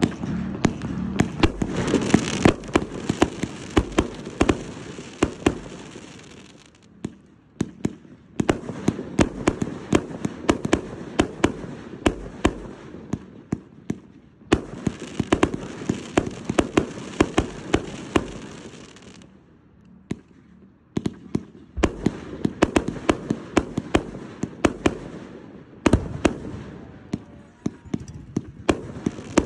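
A "Chaos" 100-shot consumer firework cake firing: a rapid string of sharp launches and bangs over a crackling hiss. It comes in volleys with brief lulls between them.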